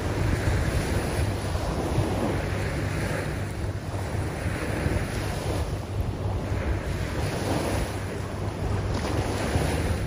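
Small sea waves breaking and washing up a shell-and-seaweed beach, their hiss swelling and fading several times, over a steady rumble of wind on the microphone.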